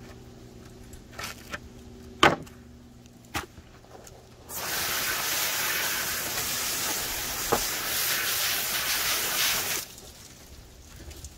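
Garden hose spray nozzle hissing for about five seconds, starting a little before halfway, as water is sprayed over a headless salmon on a plywood table. Before that, a few knocks, the loudest a single sharp one about two seconds in.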